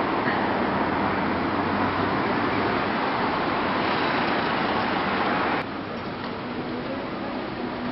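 Street traffic noise from cars driving past, a steady hiss of tyres and engines. About five and a half seconds in it drops suddenly to a quieter street hum.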